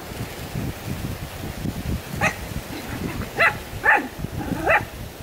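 Five-month-old Jack Russell terrier puppy barking four short, yappy barks in the second half.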